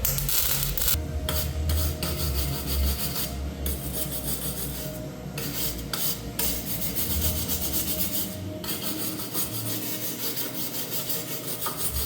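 Welder arc crackling while welding an exhaust pipe, broken by several short pauses where the arc stops.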